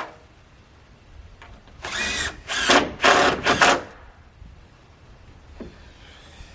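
Power drill run in four short bursts over about two seconds, the motor spinning up at the first, as if driving screws. A sharp knock at the very start.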